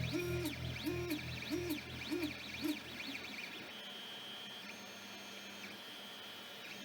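Creality CR-10 3D printer's stepper motors whining in short notes that rise, hold and fall, about two a second, as the axes move back and forth. After about three seconds the movement dies down to a quieter hum with a few steady high tones.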